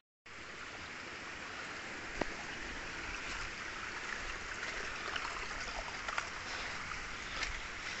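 Steady rush of a stream running over rocks, with a few faint clicks. It cuts in after a split second of silence.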